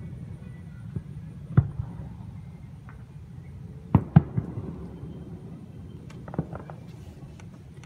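Aerial fireworks display going off: a few scattered sharp bangs, the loudest two close together about four seconds in, over a steady low rumble.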